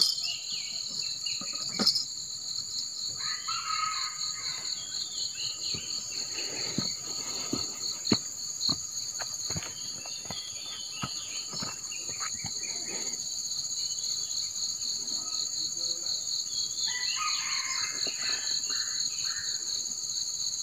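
Steady chorus of tropical insects: a continuous high-pitched buzz with a fast, even pulse. A few short chirping calls come in about four seconds in and again near the end, and scattered clicks and knocks fall through the middle.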